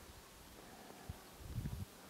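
Quiet outdoor background with faint low thumps on a handheld camera's microphone, one about a second in and a short cluster near the end.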